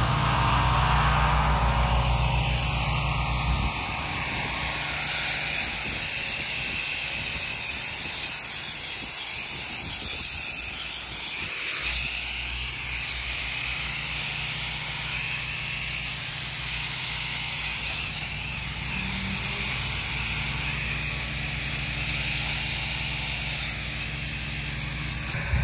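Soft-wash spray gun and wand hissing steadily as it sprays a mist of sodium hypochlorite cleaning solution onto house siding. A low motor hum runs underneath, fading about four seconds in and returning around twelve seconds.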